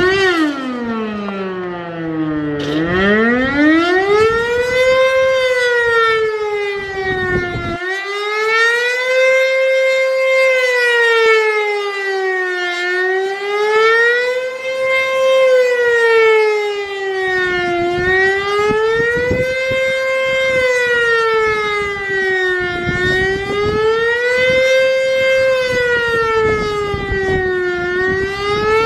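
American Signal Corporation OM-102 electromechanical outdoor warning siren sounding. It winds up, dips sharply in pitch about two seconds in, then climbs back. It settles into a steady wail that rises and falls about every five seconds.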